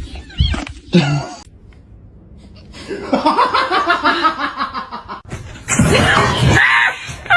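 Laughter in several short bouts.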